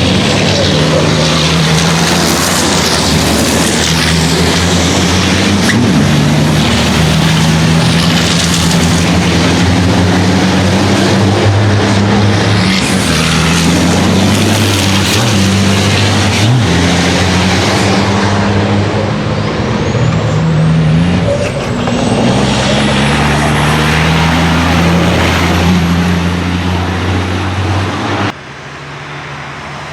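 Racing trucks' big turbo-diesel engines running hard, their pitch stepping up and down as they are driven through the gears. From about twenty seconds in, a thin high turbo whistle rises and holds over the engines. Near the end the sound drops suddenly to a quieter engine hum.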